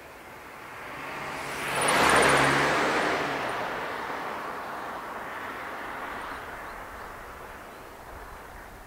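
A vehicle passing by: its noise swells to a peak about two seconds in, then slowly fades away.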